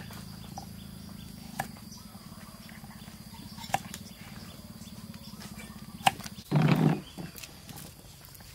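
Knife slicing carrot on a wooden chopping block, four sharp knocks on the board about two seconds apart over a steady low hum. Near the end comes a loud, low animal call of about half a second.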